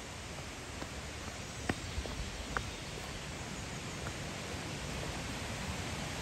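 Steady rushing noise of the waterfall's falling water, slowly growing a little louder, with a few light clicks or snaps about two seconds in.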